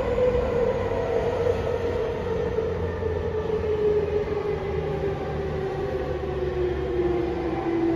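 Running sound inside a JR E231-0 series electric commuter car: a steady rumble from the wheels on the track, with a motor whine that slides slowly down in pitch as the train decelerates on its approach to a station.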